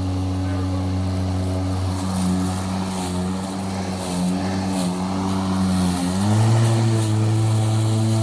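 Milwaukee cordless electric lawn mower running with a steady motor hum; its pitch wavers and sags in the middle, then steps up again about six seconds in. The mower has a fault where its power button works loose and it cuts out by itself.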